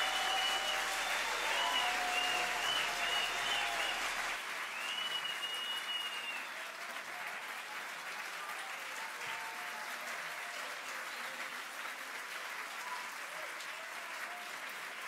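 Concert audience applauding steadily, with a few high held tones over the clapping in the first six seconds.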